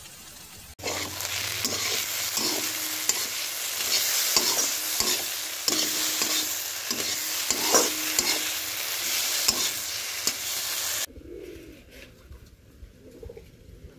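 Papaya and green pea bhujia sizzling as it fries in a pan, with a spatula stirring and scraping it against the pan over and over. The sizzling starts about a second in and cuts off suddenly near the end, leaving only faint scraping.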